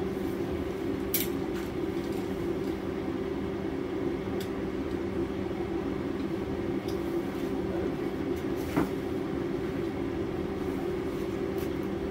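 BMW E36's M42B18 1.8-litre four-cylinder petrol engine running steadily after a fresh start, with a few light clicks in the garage.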